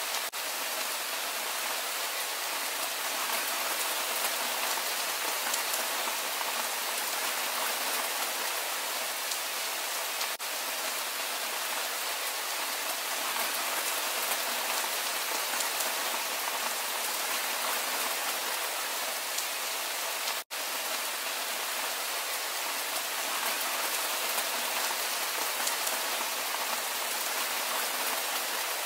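Steady rain falling, an even hiss that drops out for an instant about two-thirds of the way in.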